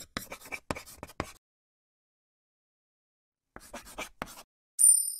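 Felt-tip marker scribbling on a board in quick short strokes: one spell, a pause of about two seconds, then a second spell. Near the end comes a brief, louder high-pitched electronic tone.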